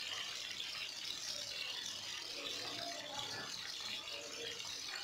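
Marinated chicken pieces deep-frying in hot oil in a kadai: a steady sizzle and crackle of bubbling oil.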